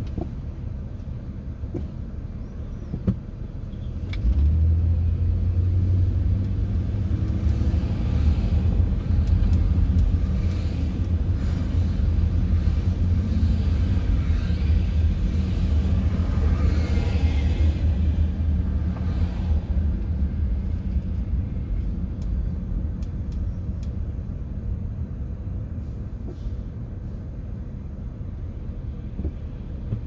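Cabin sound of a 1999 Ford Taurus pulling away from a standstill. Engine rumble and road noise rise sharply about four seconds in, hold through the middle, then ease off gradually as the car slows near the end. A single sharp click comes just before it moves off.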